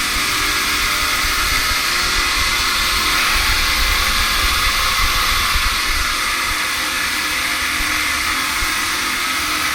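110 kW variable-speed-drive two-stage air compressor running steadily under test, a loud even hiss with several steady tones in it. A low rumble grows stronger a few seconds in, then eases.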